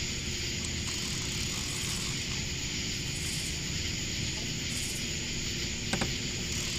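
Steady high hiss with a low rumble underneath, and a single click about six seconds in.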